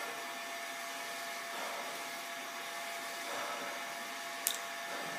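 Steady background hiss with a faint hum, and a single sharp click about four and a half seconds in.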